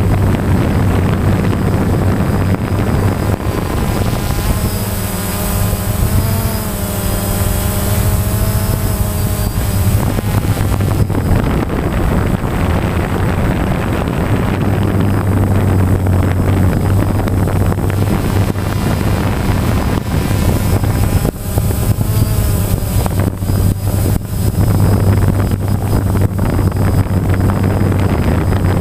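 DJI Phantom quadcopter's four rotors and motors running steadily in flight, a loud steady buzz with a low hum, picked up by the drone's own onboard camera.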